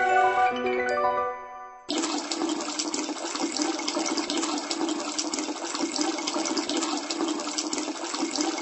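A tap running water into a bathtub, a steady rush that starts suddenly about two seconds in. Before it, the last notes of a marimba-like theme tune ring out and fade.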